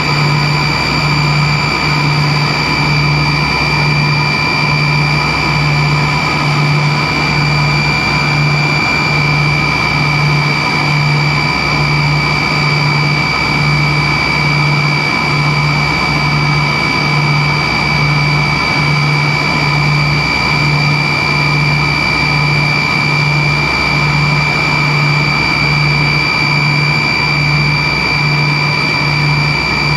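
Cabin noise of a Tupolev Tu-134B-3 in flight: its two rear-mounted Soloviev D-30 turbofans give steady high whining tones over an even rush of noise. A low throb pulses a little more than once a second.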